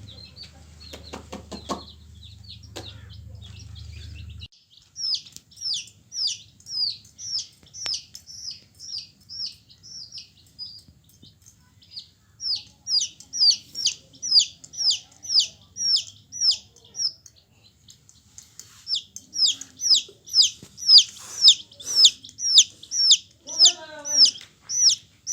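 Domestic chicks peeping: a long run of high, falling peeps, about two a second, quieter for the first few seconds and louder from about twelve seconds in.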